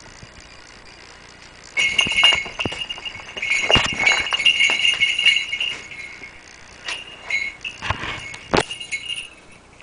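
Small bells on a hawk's legs jingling in bursts as the bird moves and flaps, starting about two seconds in, mixed with clicks and rustling from its wings and feet.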